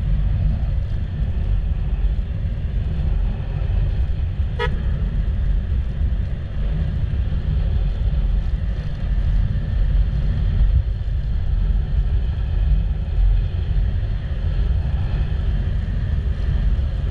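Steady low rumble of a motorcycle on the move, wind and engine noise on the rider's microphone, with one short vehicle-horn beep about four and a half seconds in.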